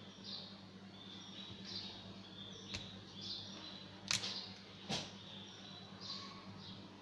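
Sharp plastic clicks as a smartphone's back cover and battery are handled and prised out, three in all, the last two loudest. Underneath, a steady low hum and a short high chirp that repeats about every second and a half.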